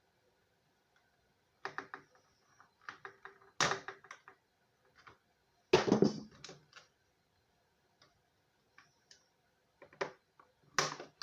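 Scattered clicks, knocks and rustles of a vinyl Funko Pop figure and its plastic packaging being handled and worked free, with silent gaps between; the loudest knocks come about four and six seconds in, and another near the end.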